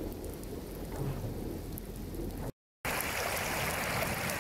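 Rain falling on standing floodwater, with a low rumble underneath. About two and a half seconds in it cuts off briefly to silence. Then comes the louder, steady rush of a muddy flash flood pouring through a dry-valley channel after heavy rain.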